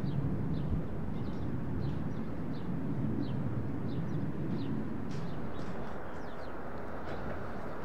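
Small birds chirping over and over, short high downward chirps about once or twice a second, over a steady low outdoor rumble.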